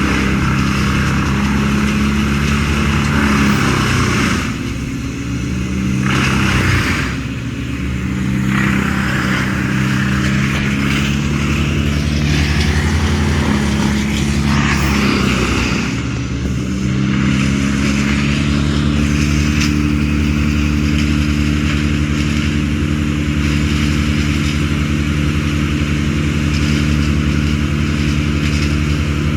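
A large engine running steadily, with a rough hiss over it. Its pitch sags briefly three times, about 4.5, 7 and 16 seconds in, then recovers.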